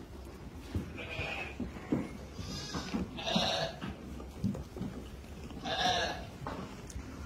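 Sheep bleating: three calls, about one second in, a longer one around three seconds in, and another near the end, over scattered low knocks.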